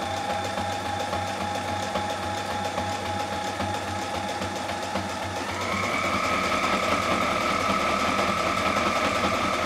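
Reliable Barracuda sewing machine running steadily while winding a bobbin, the needle still going up and down because its clutch does not free the handwheel from the needle drive. The motor's whine rises in pitch about halfway through.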